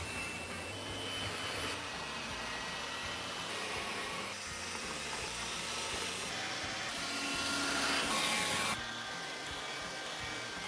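Tineco Floor ONE S7 PRO cordless wet-dry floor vacuum running: a steady motor whir with rushing air. Its tone changes abruptly several times.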